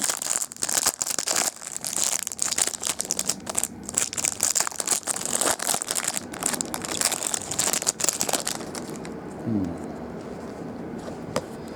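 The wrapping of a trading-card box crinkling and tearing as it is opened by hand: a dense run of crackles and sharp clicks that eases off about nine seconds in.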